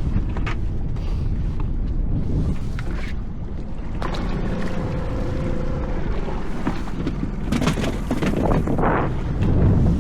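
Small fishing boat's engine running with a steady low rumble and wind on the microphone, with knocks and clicks as lobster pots are handled aboard and a louder rush of noise about eight seconds in.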